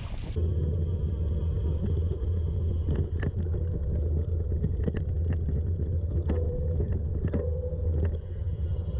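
Gravel bike rolling through sand and gravel, heard as a steady low rumble of tyres and frame vibration with scattered sharp clicks of grit and rattles.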